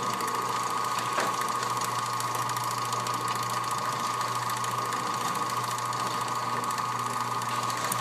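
Older garage door opener's electric motor running steadily as it drives the door down, a smooth mechanical hum with a click about a second in. It cuts off suddenly at the end as the opener reaches its down limit and stops.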